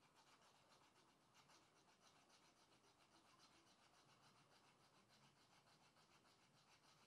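Faint, rapid rhythmic scratching, several quick strokes a second, like something hard being rubbed back and forth over a surface.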